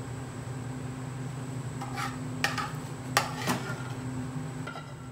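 A slotted metal spatula knocks and scrapes against a metal frying pan and a ceramic plate as fish and sauce are scraped out of the pan. Sharp clinks start about two seconds in, and the metal rings briefly near the end.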